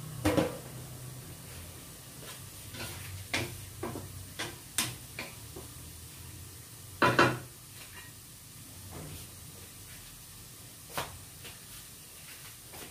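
Cooking utensils clinking and knocking in a wok as vegetables are stirred with a spoon, a handful of scattered knocks with the loudest clatter about seven seconds in, over a low steady hum.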